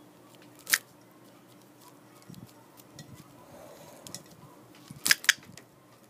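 Close handling noise: a sharp click about a second in and two more in quick succession near the end, with faint ticks and scratches between.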